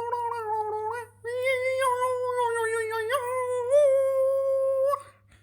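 A voice holding a long high hummed note, with slight wavers in pitch, broken by a short gap about a second in and stopping about five seconds in.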